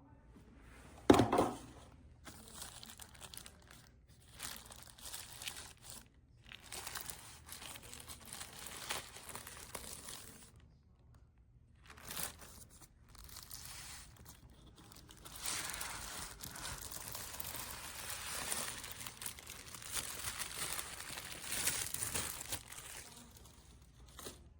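Packaging torn open and crinkled as a delivered parcel is unboxed: stretches of rustling and tearing with short pauses. A single sharp knock about a second in is the loudest sound.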